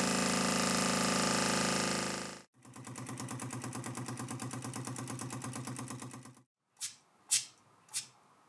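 Air Hogs compressed-air piston engine spinning a small propeller and running down as its air bottle empties: a steady fast buzz, then a rapid even chuffing of about a dozen exhaust puffs a second, then four last puffs coming further and further apart as it stops.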